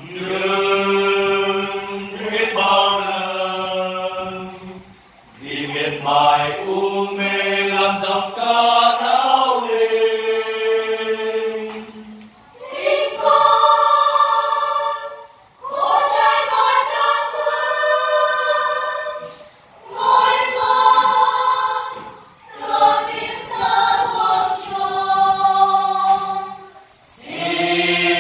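Parish choir of men and women singing a hymn together, in sung phrases of three or four seconds broken by short pauses.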